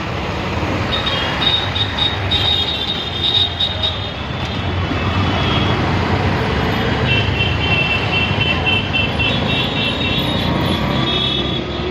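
Auto-rickshaw engine rumbling amid dense road traffic. High, drawn-out vehicle horns sound twice: for a few seconds near the start, and again from a little past the middle until near the end.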